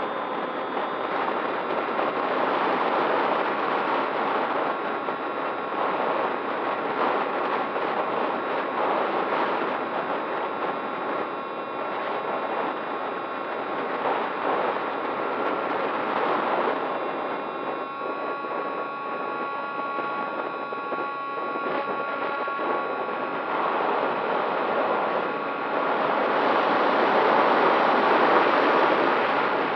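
Onboard sound of a model aircraft's motor and propeller in flight: a steady whine with a few high tones that shift slightly with throttle, over rushing wind noise on the microphone. It grows louder near the end as the plane banks.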